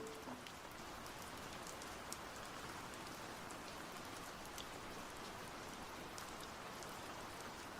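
Faint steady rain, an even hiss with scattered light ticks of drops.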